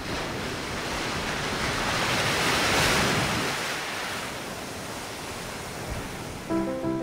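A long whoosh of rushing noise that swells to a peak about three seconds in and then slowly eases off. Music with distinct keyboard-like notes starts near the end.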